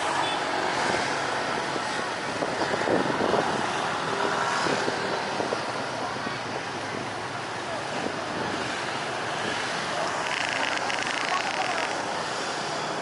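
Stopped road traffic with motorcycle and car engines idling, and a crowd talking.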